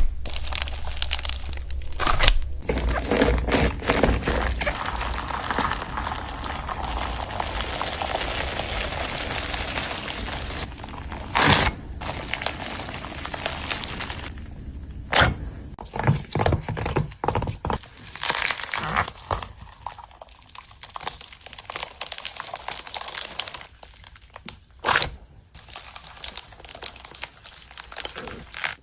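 Slime being scooped and squished: a dense run of small crackles and sticky pops. It comes as several separate scoops, each breaking off abruptly into the next.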